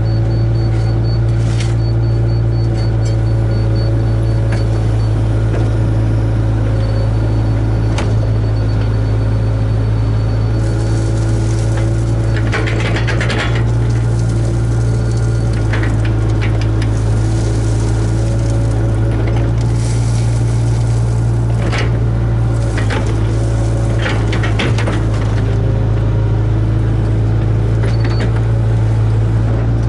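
Hitachi ZAXIS 75UR hydraulic excavator's diesel engine running steadily under load, heard from inside the operator's cab. In the later part there are several short rasping bursts and knocks as the machine digs.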